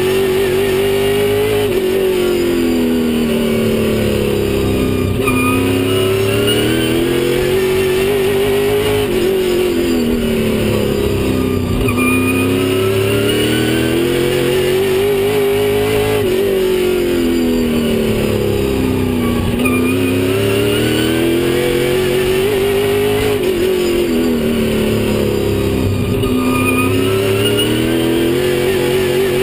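Stock car engine racing around a short oval. Its pitch rises under acceleration and falls when the driver lifts for the turns, over and over every three to four seconds.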